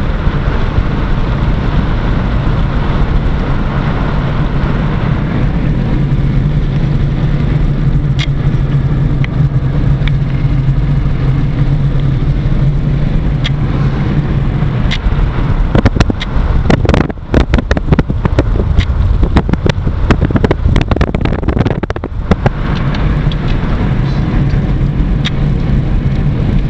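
Car driving along town streets, heard from inside: a steady engine hum and road noise. For several seconds past the middle, a dense run of sharp knocks and rattles cuts through.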